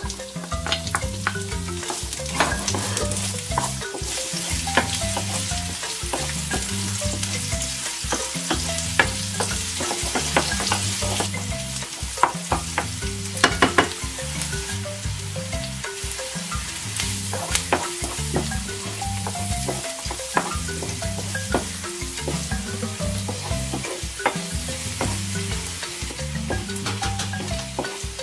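Chopped onions sizzling in hot oil in a nonstick frying pan, stirred with a wooden spoon that clicks and scrapes against the pan, with a cluster of sharper knocks about halfway through. Light background music plays underneath.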